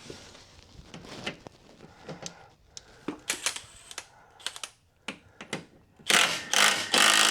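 Scattered clicks and light metal knocks from hand tools working on the mower deck. About six seconds in comes a louder, noisy rasping sound lasting over a second.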